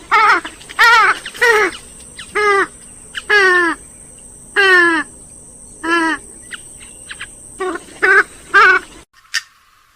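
Grey-headed swamphen calling: a series of about a dozen loud, nasal calls, each falling in pitch, that cuts off suddenly about nine seconds in.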